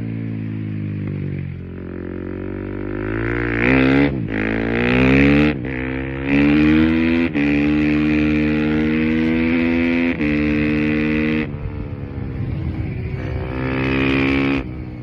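KTM EXC-F 350 single-cylinder four-stroke with an Akrapovic exhaust accelerating hard. The note climbs through the gears with a brief break at each shift, holds high revs, eases off about two-thirds through, then pulls up once more and drops away near the end.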